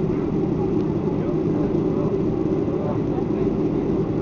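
Steady engine and cabin noise inside a Boeing 737-500 as it taxis onto the runway, its CFM56 turbofans running at low power with no spool-up yet.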